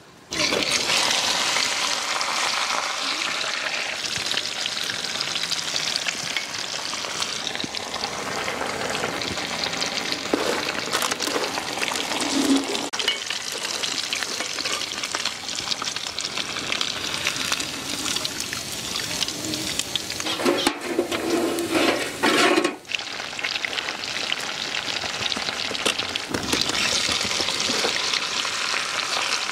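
Ribbon fish coated in egg and crushed noodles deep-frying in a kadai of hot oil: a steady, loud sizzle that starts abruptly as the fish goes in, with a long ladle stirring through the oil.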